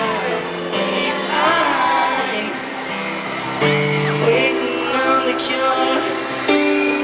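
Live pop ballad played over a concert sound system, an instrumental stretch of held chords between sung lines, with audience voices singing and screaming over it.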